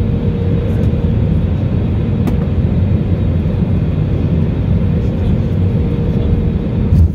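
Steady low rumble of airflow and the Pratt & Whitney PW1100G geared turbofans heard inside the cabin of an Airbus A320neo in the flare just above the runway, with a thin steady hum over it. Near the end a sudden low thump as the main gear touches down.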